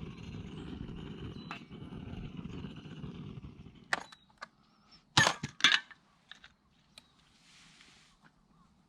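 A low steady rumble that stops about four seconds in, then a few sharp knocks and clatters, the loudest two coming close together about five seconds in.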